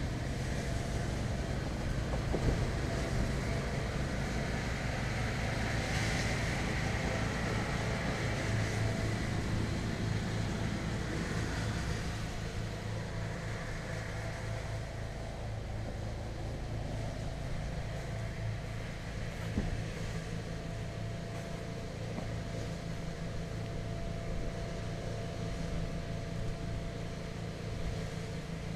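Tow vehicle's engine running at a low idle, a steady hum, a little louder for about the first twelve seconds while the empty boat trailer is pulled forward, then settling quieter.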